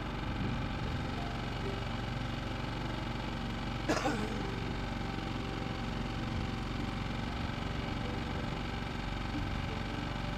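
Sailboat's auxiliary engine running steadily while motoring under way, with a short sharp sound about four seconds in.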